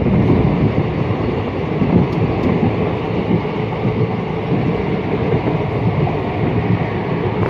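Indian Railways passenger train running at speed, heard from an open coach doorway: a steady, loud rumble of wheels and carriage on the track.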